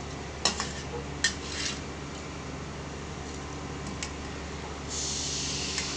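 Metal ladle stirring broth in a wok, knocking and scraping against the pan a few times in the first two seconds. About five seconds in, a steady hiss begins over a low background hum.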